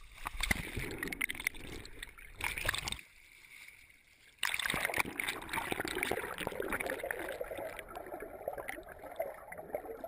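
Sea water splashing and gurgling against a camera at the surface, dropping away briefly about three seconds in, then a steady dense rush of water once the camera is under the surface.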